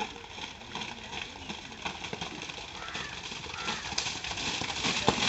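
A pair of Kambala racing buffaloes splashes through the flooded mud track, the splashing growing louder as they near, with people shouting.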